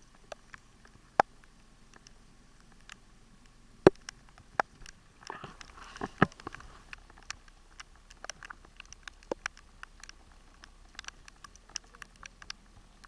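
Irregular sharp clicks and knocks, a few of them loud, with a short rustling noise about five to six seconds in.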